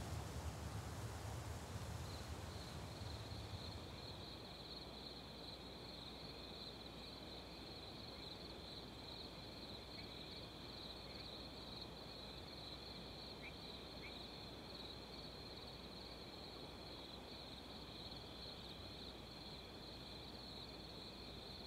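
Faint insect trilling: a steady, high-pitched, finely pulsing chirr that sets in about two seconds in, over a soft background hiss.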